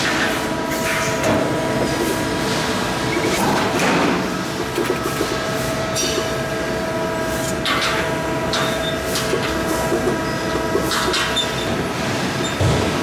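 Komatsu 200-ton press brake running while steel plate is bent: a steady machine hum with several held tones, broken every second or few by short sharp clanks and hisses of metal work.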